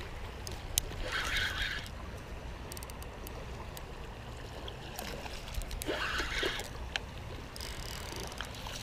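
Water splashing in two short bursts, about a second in and again about six seconds in, as a hooked fish thrashes at the surface while being reeled in, over light handling noise from the fishing rod and reel.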